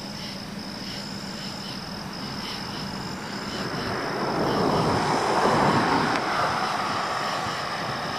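A car passing on the road, its tyre and engine noise swelling to a peak about five seconds in and then fading as it drives away. Insects chirr steadily underneath.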